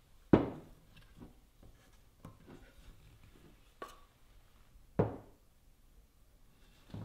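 A metal spoon scraping thick ground chocolate mass out of a stainless steel jug: soft scrapes and clicks, with a sharp knock under a second in, a smaller ringing knock near four seconds and another sharp knock about five seconds in.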